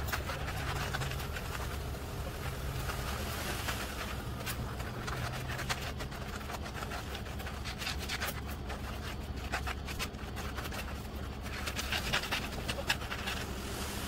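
Concrete mixer truck running steadily in the background, with repeated scraping of rakes dragged through wet concrete.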